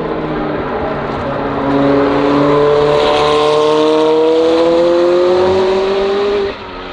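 McLaren 720S GT3 race car's twin-turbo V8 accelerating, its note rising steadily in pitch and getting louder about two seconds in, then dropping away suddenly near the end.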